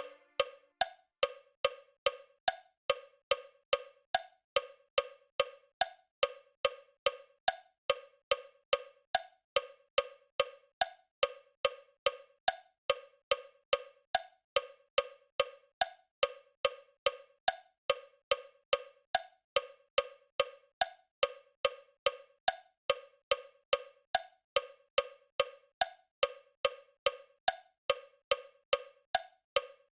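Metronome clicking a steady, fairly fast beat, with a higher-pitched accented click marking the start of each bar.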